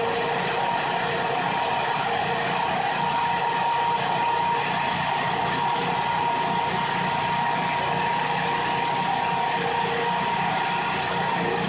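Fire engine running steadily at a fire scene: a continuous engine drone with a steady high whine over it.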